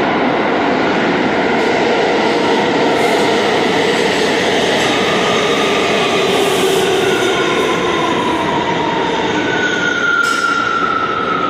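New York City Subway train running on the express track, a loud steady rumble of wheels and cars. Near the end a high squeal sets in and slides slowly down in pitch.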